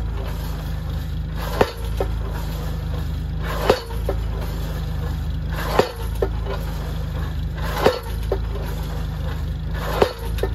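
Tractor-mounted hydraulic post pounder driving a wooden fence post into the ground: the ram strikes the post five times, about every two seconds, each blow followed by a lighter knock. The tractor's engine runs steadily underneath.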